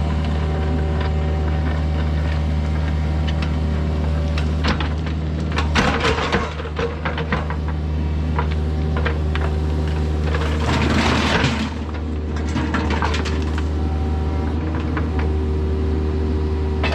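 Kubota mini excavator's diesel engine running steadily, with two stretches of scraping and clattering, about five seconds in and again about ten seconds in.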